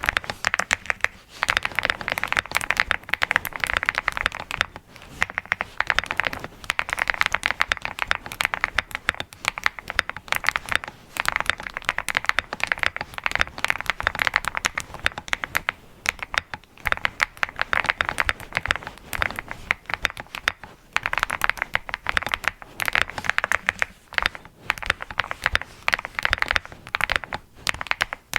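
Continuous fast typing on an Angry Miao Cyberboard R4 mechanical keyboard with Red Wine switches and JTK HSA Hyperfuse keycaps: a dense stream of keystroke clacks, broken by brief pauses every few seconds.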